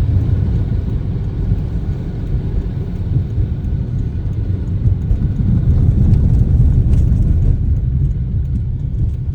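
A car being driven, its tyres and engine making a steady low road rumble.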